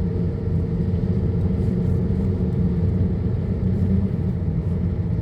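Vehicle engine running steadily with an even, low rumble.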